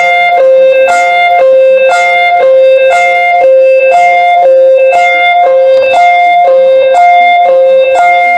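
Loud synthesized emergency alert tone: a steady held note with short higher plucked-sounding notes over it, the figure repeating about once a second.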